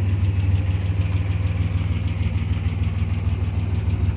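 1969 MGC's 2.9-litre straight-six engine idling steadily, its bottom end fully rebuilt and balanced.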